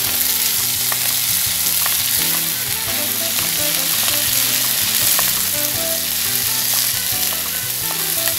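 Diced palma cactus pads, chopped ham and onion sizzling steadily in a frying pan while being stirred with a spatula, with small scrapes and clicks against the pan.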